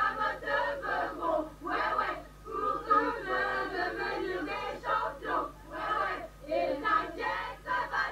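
Many voices singing or chanting together in short, uneven phrases.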